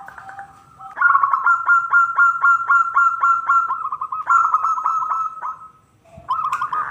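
Zebra dove (perkutut) calling: a loud, fast run of clipped cooing notes, about four a second for some four seconds, then after a short pause another run begins near the end.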